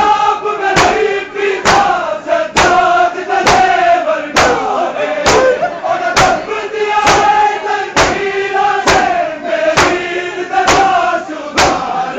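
A crowd of men chanting a noha together in a loud lament, with sharp claps of matam, open hands striking bare chests in unison, landing about once a second.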